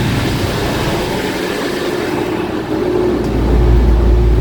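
Ferry's diesel engine running with a steady drone, its low rumble deepening and growing louder about three seconds in as the engine is throttled up.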